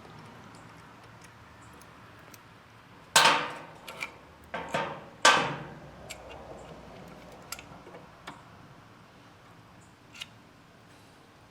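A few sharp metallic knocks and clinks, loudest about three and five seconds in, then a few light ticks: an LED pod light and its metal mounting bracket being handled and set in place on a motorcycle.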